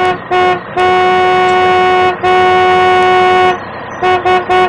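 Car horn honking on one steady pitch: two short toots, two long blasts of over a second each, then four quick toots near the end. A steady engine-like rumble runs underneath.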